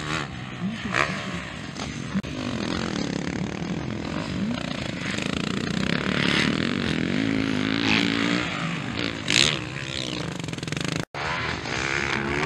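Motocross bike engines revving up and down as riders race over a dirt track, the pitch rising and falling with each throttle change. The sound cuts out for an instant about 11 seconds in.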